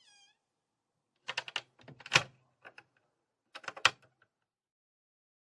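Rattling mechanical clicks in short clusters, the loudest clunk about two seconds in and another near four seconds, with silence between them.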